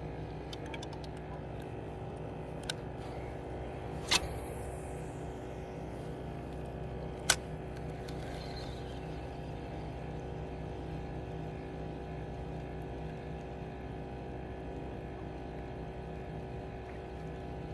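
A motorboat engine running steadily, a continuous low hum, with three short sharp knocks or clacks about three, four and seven seconds in, the last the loudest.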